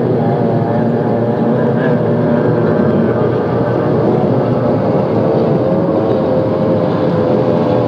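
Two-stroke V6 outboard racing engines of Formula 1 powerboats running at racing speed, a loud steady drone with no distinct crash impact heard.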